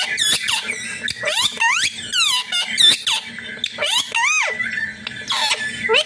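Indian ringneck parakeet giving a rapid string of short, squeaky calls, each sweeping up and down in pitch, with a brief pause near the end.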